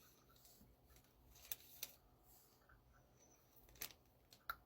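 Mostly near silence, with a few faint sharp clicks and crinkles from handling a snack's packaging.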